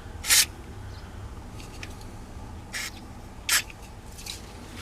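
Short hissing squirts from a WD-40 aerosol can, three main bursts with the first the longest, sprayed into the steering-column turn-signal and wiper switch mechanism to lubricate it.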